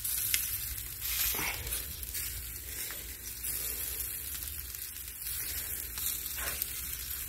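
Chicken sizzling over hot charcoal on a grill grate while barbecue sauce is brushed on, a steady crackling hiss with a few faint clicks.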